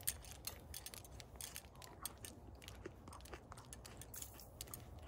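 Metal climbing gear (carabiners and quickdraws on a harness gear loop) clinking in a string of irregular light clicks as it is handled, over a low rumble of wind on the microphone.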